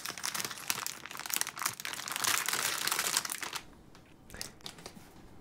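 Plastic food bag crinkling as it is handled and cut open with scissors. The rustling is dense for about three and a half seconds, then drops to a few faint rustles.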